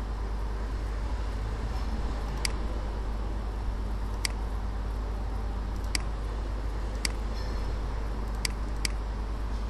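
Six short, sharp computer mouse clicks spaced irregularly, over a steady low hum and hiss from the recording setup.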